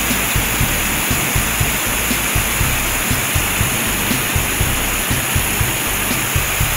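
Fire hose spraying water, a steady loud hiss, over background music with a steady beat.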